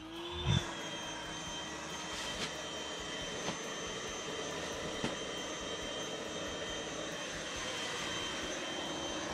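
Electric air pump running steadily with a high whine, inflating an air mattress; its pitch rises slightly as it comes up to speed near the start. A few soft knocks from handling the mattress, the loudest about half a second in.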